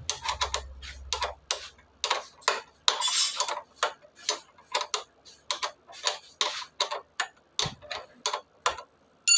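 A regular series of sharp clicks, about three a second, with a low hum fading out in the first second and a half.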